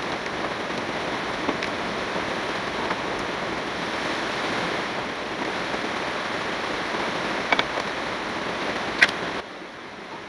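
Steady rushing background hiss, with two light clicks a second and a half apart near the end; the hiss drops suddenly and becomes quieter about nine and a half seconds in.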